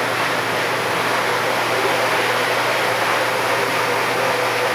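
Pressure washer spraying a steady jet of water against a screen-printing screen to wash out exposed photo emulsion: a constant hiss of spray over a steady low hum from the machine.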